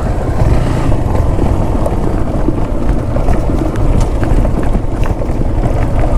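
Motorcycle riding down a loose gravel track: a steady low rumble of wind and road noise on the microphone, with scattered small clicks and ticks.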